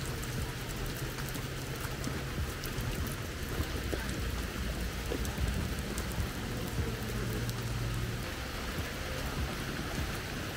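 Steady rain falling on the ground and lawn, an even hiss with many small drop ticks scattered through it.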